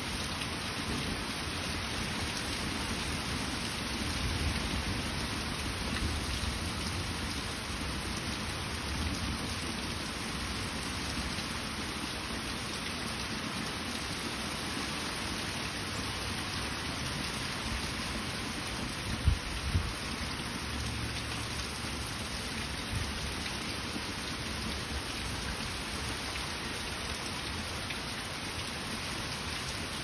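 Heavy rain pouring down steadily, with low uneven rumbles underneath and one short low thump about two-thirds of the way through.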